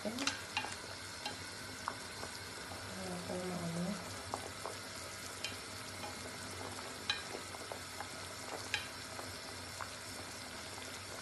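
Whole chicken boiling in a pot of water: a steady bubbling hiss, with a few light clicks of tongs against the pot.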